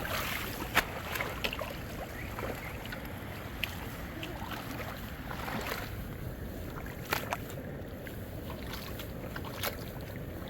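Steady low outdoor noise with a few scattered sharp clicks or knocks.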